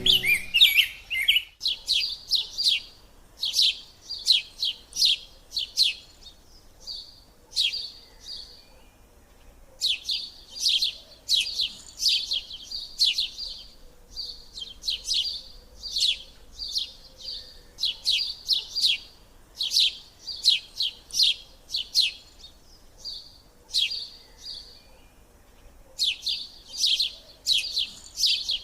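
Canaries chirping: quick series of short, high, sharp calls in clusters, with brief pauses of a second or two between groups.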